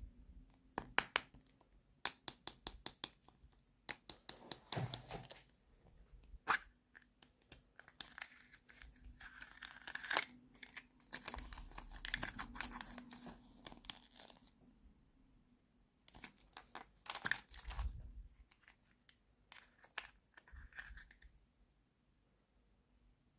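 Plastic toy packaging being torn and crinkled open, in bursts of rustling and clusters of sharp clicks.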